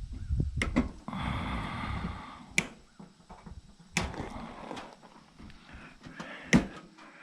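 A few sharp clicks and knocks, with rustling and scraping between them, as parts of a kitchen range are handled and taken apart.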